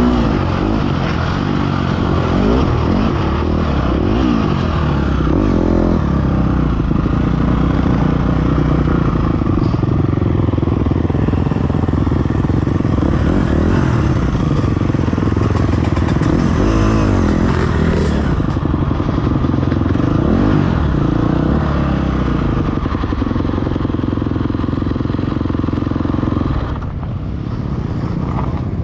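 Dirt bike engine revving up and down as the bike is ridden hard over a dirt track, its pitch rising and falling again and again. About 27 seconds in it drops to a quieter, steadier note as the bike slows.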